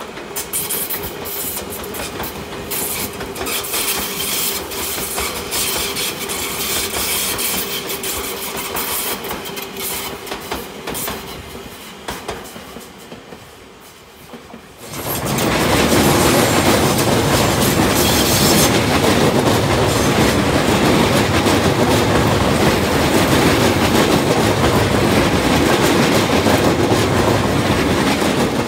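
Tobu Railway express electric trains, among them a 100 series Spacia, passing through a station. Wheels clack over rail joints amid a rolling rumble, which fades. About halfway in, a much louder steady rumble begins suddenly as a train runs close alongside the platform.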